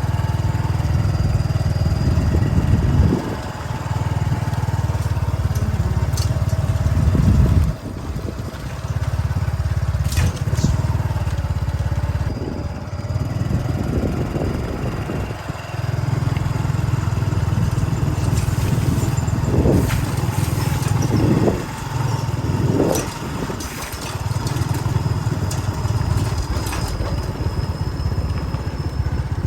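Motorcycle saleng (sidecar cart) engine running under way, easing off briefly a few times before picking up again.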